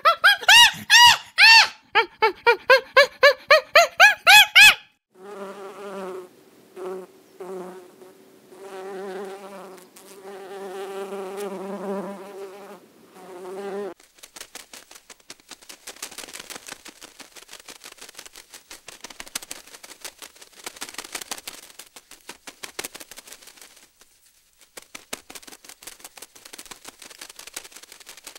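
An animal calling in a fast series of loud, rising-and-falling pitched notes for about five seconds. Then an insect buzzes on a steady pitch, starting and stopping, for several seconds, followed by a faint, dense crackling of ticks.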